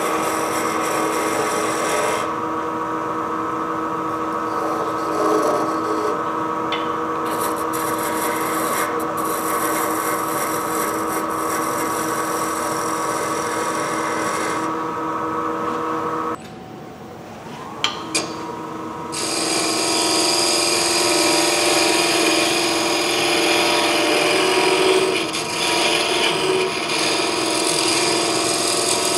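Wood lathe running with a steady motor hum while a tool works the spinning wooden canteen, making a rough rubbing, scraping sound. A little past the middle the sound falls away for about three seconds, broken by two sharp clicks, then the hum and the scraping resume.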